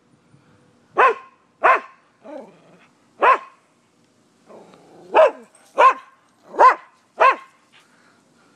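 Dogs barking aggressively at a fence: seven sharp barks, three spaced out over the first few seconds, then four quicker ones about half a second apart, with fainter sounds between.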